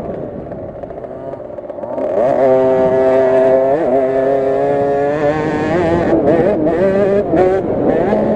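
Onboard sound of a KTM SX50's 50cc two-stroke single-cylinder engine: eased back for the first two seconds, then revving up about two seconds in and held high, with a brief dip near four seconds. From about five seconds on the pitch wavers up and down as the throttle is worked.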